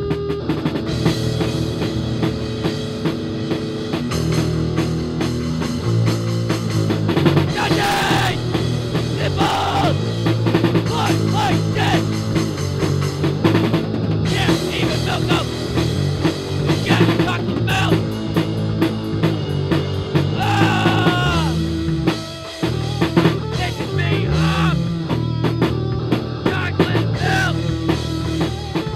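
Recorded rock music with a drum kit, punk-leaning, playing steadily, with a brief break in the sound about three-quarters of the way through.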